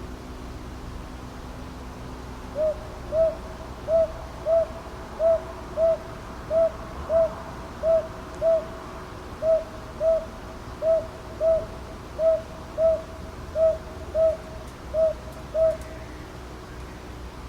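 Northern boobook (brown hawk-owl, Ninox japonica) calling its two-note 'ho-ho' hoots, about ten evenly spaced pairs of short low notes. It starts a few seconds in and stops shortly before the end, over a steady background hiss.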